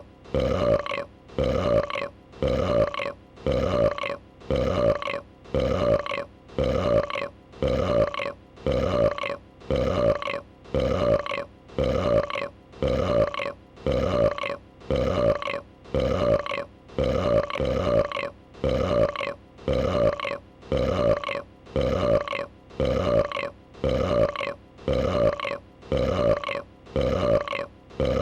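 A female dragon's burp, a short pitched belch repeated over and over at an even pace, about three every two seconds, each one alike.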